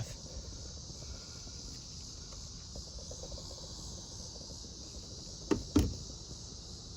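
Steady high chirring of crickets. Two quick knocks sound close together about five and a half seconds in.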